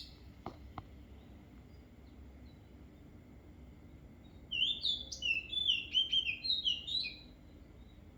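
A songbird sings one quick run of high, sliding notes lasting about two and a half seconds, starting about halfway through, over a steady low hum. Two faint clicks come near the start.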